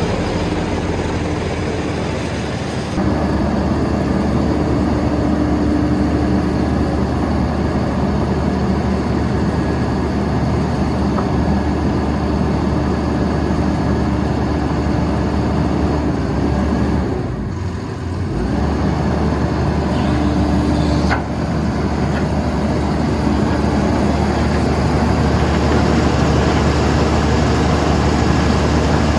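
The diesel engine of a Vögele Super 1800-3i asphalt paver running steadily with a low hum, dipping briefly a little past halfway.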